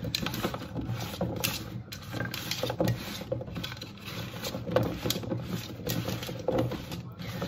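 Oiled raw potato wedges being tossed and spread by hand on a metal baking tray: irregular soft knocks and scrapes as the pieces slide and bump against the tray and each other.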